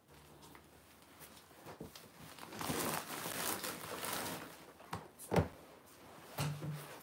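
Rustling handling noise of a phone being moved about close against clothing, followed by a few sharp knocks, the loudest about five seconds in.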